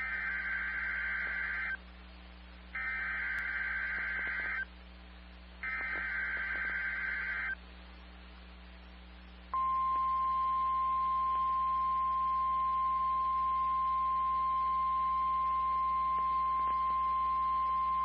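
NOAA Weather Radio Emergency Alert System activation for a severe thunderstorm warning: three bursts of SAME header data, a harsh digital warble, each about two seconds long with a second's gap between them, then the steady 1050 Hz warning alarm tone held for about nine seconds.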